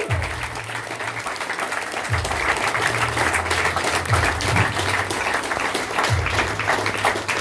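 Crowd clapping and applauding over music, with a low bass line that sounds in held notes restarting about every two seconds.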